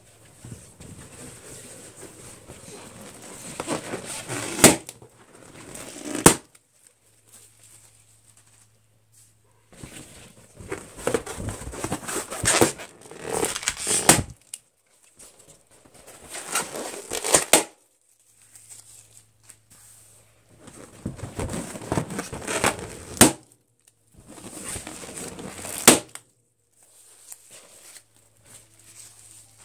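Latex balloons being gripped and scratched with fingernails, rubbing and squeaking under the fingers, then bursting with sharp, loud pops, about six times over the stretch.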